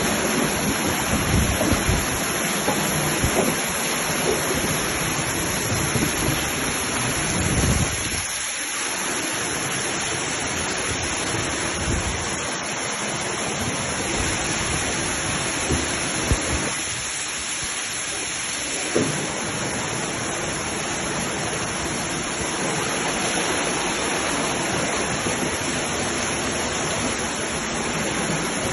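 Heavy rain pouring down steadily in a violent summer thunderstorm, with a few sharp taps scattered through.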